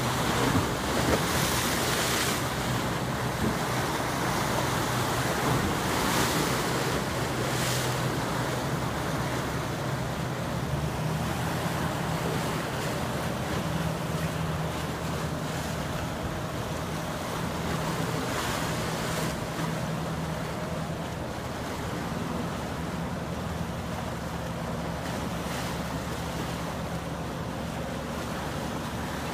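Wind gusting on the microphone over choppy, splashing river water, with a low steady engine hum underneath.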